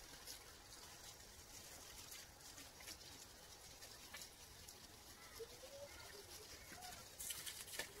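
Faint patter and hiss of water from a garden hose spraying onto shrubs and the ground, a little louder near the end. A short, faint gliding animal or bird call comes about five and a half seconds in.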